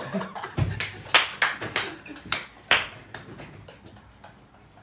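A low thump about half a second in, then about half a dozen sharp, unevenly spaced hand claps over the next two and a half seconds, dying away.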